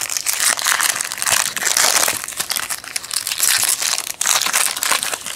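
Foil wrapper of a Topps Chrome trading-card pack crinkling as it is torn open by hand, with a dense run of irregular crackles throughout.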